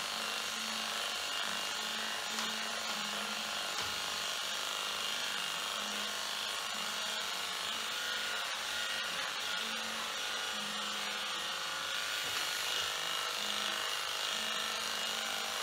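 Electric dog-grooming clipper running steadily with an even buzz, shaving through a dog's heavily matted coat.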